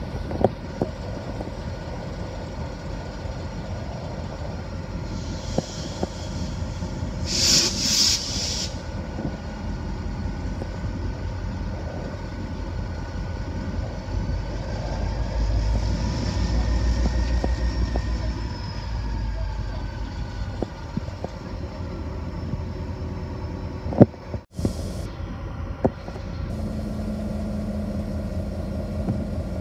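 Watco Australia diesel locomotive WRA008 running steadily, most likely at idle, with a constant engine hum. A few short hisses come about a quarter of the way in. The engine sound swells for several seconds around the middle. A single sharp knock comes near the end.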